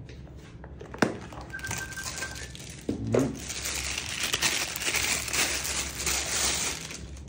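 Two sharp clicks, about one and three seconds in, then a clear plastic bag crinkling for about four seconds as a holographic sight is taken out of it.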